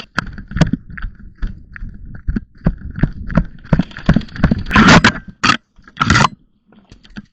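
Irregular clicks and knocks of a jammed airsoft rifle and gear being handled, with three louder rushes of noise near the end.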